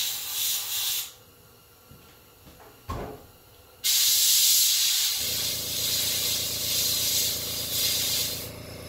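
Airbrush spraying paint with a steady hiss, which stops about a second in as the trigger is released and starts again near four seconds. About five seconds in an air compressor starts and runs with a steady hum under the hiss.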